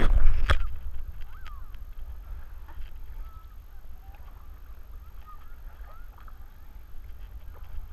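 Animal calls: a loud call right at the start, then many faint short squeaky calls with quick rises and falls in pitch, over a steady low rumble.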